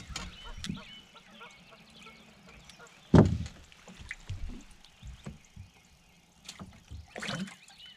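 Knocks and footfalls on a boat's deck as an angler shifts about and casts, with one heavy thump about three seconds in and a cluster of knocks near the end. Geese honk faintly in the distance.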